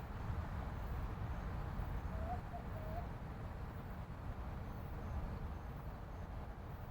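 Helicopter's low steady rumble, with a bird's short call of three quick notes about two to three seconds in.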